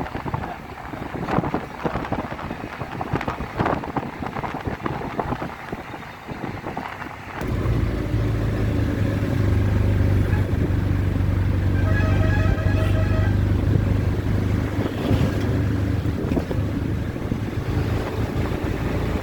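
Wind buffeting the microphone, then from about seven seconds in a steady low engine hum that runs on, with a short pitched tone around twelve seconds in.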